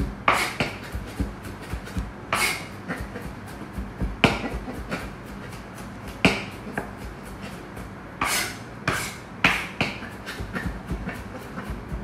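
Knife chopping on a cutting board: a fast, uneven run of light taps, with heavier strokes every second or two.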